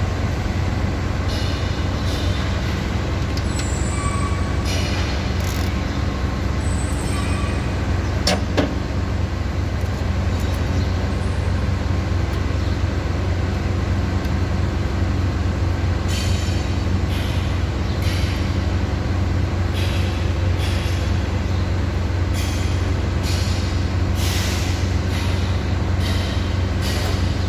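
Steady low drone of machinery running nearby, with a sharp metallic click about eight seconds in and a run of short clicks and scrapes of hand tools near the end, as valve clearances are being adjusted.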